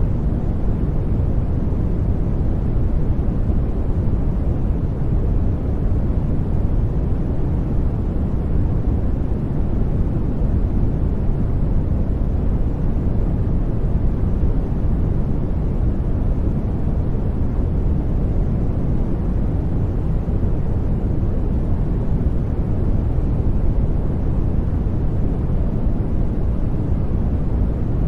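Steady generated noise from a noise-generator track, sold as white noise but deep rather than hissy, with most of its weight in the bass and little treble, unchanging throughout.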